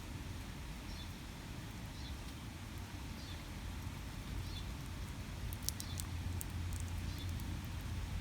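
Squirrel cracking sunflower seed shells: a cluster of sharp clicks a little past halfway, over a steady low rumble. A faint high chirp recurs about once a second.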